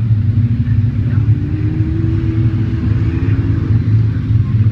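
Several speedway saloon car engines running in a deep, steady rumble as the cars circle a dirt oval, with one engine's note rising and then falling as it passes, about two to three seconds in.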